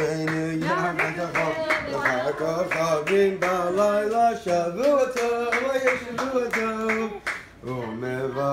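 A group of voices singing a tune together, with hands clapping along in time.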